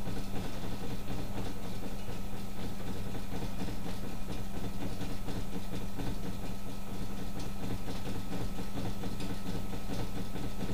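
Electric bicycle hub motor spinning its unloaded wheel at full speed, a steady hum with a thin high tone above it.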